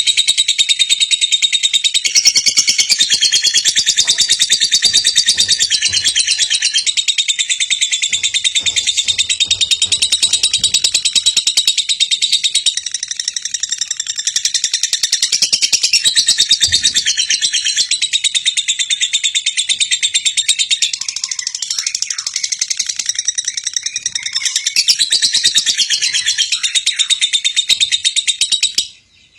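Lovebird singing a long, continuous stream of rapid, high chattering notes, the kind of song used to prompt a young lovebird to sing. It cuts off just before the end.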